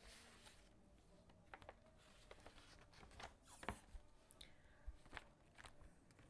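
Faint handling sounds from unboxing merchandise: scattered small clicks and taps of packaging and items being handled, the sharpest a little past halfway.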